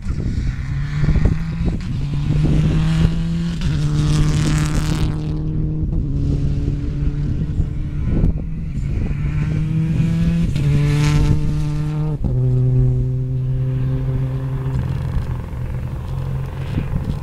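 Rally car engine running hard as the car drives a stage, its pitch holding and then stepping to a new note every couple of seconds with the gear changes, the noise swelling twice as the car goes by.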